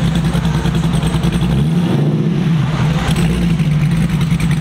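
A car engine running loud and steady, with a brief change in pitch about two seconds in.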